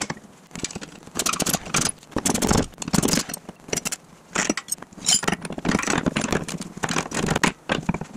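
Loose metal parts clinking and scraping, handled and fitted by hand against the truck's steel frame, in irregular bursts.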